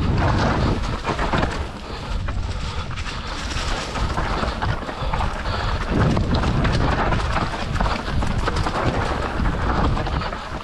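Mountain bike riding fast down a dirt forest trail: tyres rolling over packed earth and dry leaves, with many quick rattles and knocks over the bumps and a heavy low rumble of wind on the microphone.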